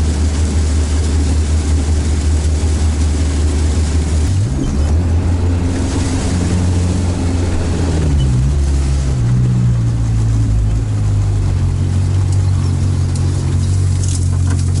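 Sherp all-terrain vehicle's engine heard from inside the cab as it drives through water and then brush: a steady low drone whose pitch steps up about four seconds in and again around eight seconds in, with a hiss of water and brush against the hull from about six to eight seconds.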